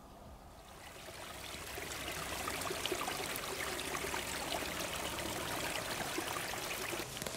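A small mountain stream trickling and splashing, fading in over the first two seconds and then running steadily.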